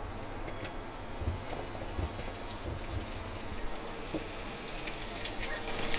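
Whole pointed gourds (potol) frying in hot mustard oil in a wok: a steady sizzling hiss with scattered small crackles.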